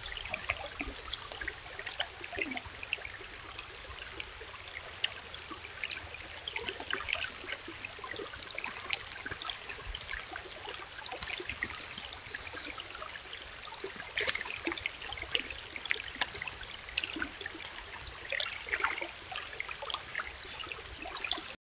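Shallow rocky stream trickling and babbling over stones: a steady rush of water with many small splashes and plinks.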